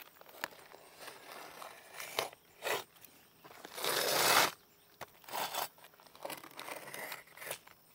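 Utility knife cutting through an asphalt roofing shingle along a speed square: several short scraping cuts, with one longer, louder stroke about four seconds in.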